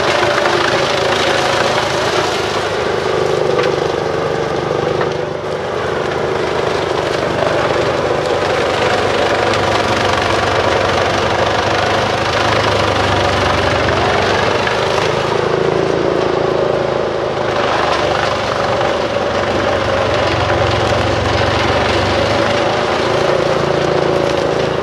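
Truck-mounted Bruks 1006 ST wood chipper running hard on its separate 720 hp engine while chipping logging slash. The heavy engine drone is loud and continuous, its note dipping briefly about five seconds in and shifting a few times as the load changes.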